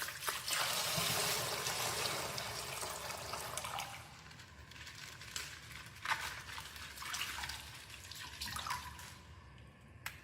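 Faint rustling and crinkling of plastic toy packaging being handled and opened, loudest in the first few seconds, then a few light clicks and taps.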